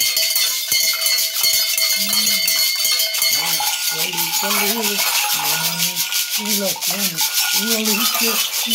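Gourd maracas, one with a beaded net, and bunches of small metal bells shaken hard and continuously: a dense, steady rattle with the bells ringing through it. A man's voice sounds in short phrases over the rattling, more often in the second half.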